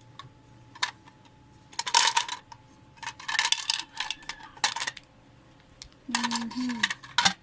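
Hard plastic Mr. Potato Head parts clattering and rattling as they are handled and pulled from their packaging, in three clusters of clicks and rustles.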